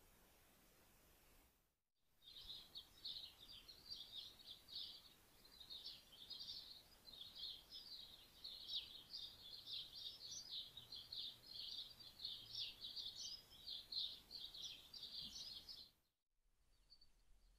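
Small birds twittering, a rapid, unbroken run of high chirps that starts about two seconds in and cuts off abruptly near the end.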